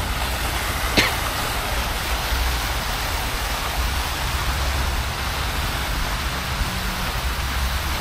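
Wind blowing across the action camera's microphone: a steady rushing noise with a deep rumble beneath it, and a single knock about a second in.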